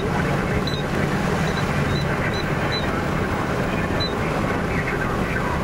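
Steady low rumble and wind noise of a vehicle with its engine running, heard from inside, with a few short, faint high chirps scattered through the first four seconds.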